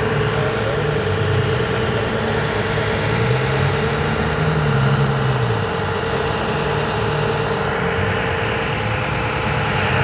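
A heavy machine's engine running steadily, its pitch rising and falling slightly near the middle, with a steady whine over it.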